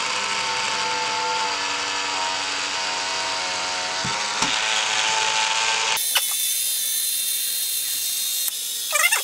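Robotwist-style automatic jar opener running its cycle: its small 3 V DC motor whirs steadily through the plastic reduction gears as the jaws grip and twist a jar lid, with a few clicks. It is working again now that the seized first gear has been freed. The whirring cuts off suddenly about six seconds in, followed by a few brief clicks and squeaks.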